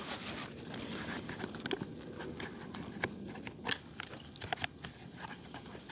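Eating from a freeze-dried meal pouch: scattered small clicks and taps of a spoon in the pouch, with faint rustling, at irregular intervals.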